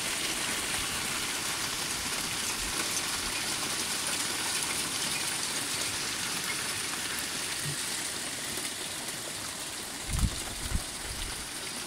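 Hail and rain falling hard on roofs, sheds and a garden, a steady hiss that eases a little in the second half. A couple of short low thumps sound near the end.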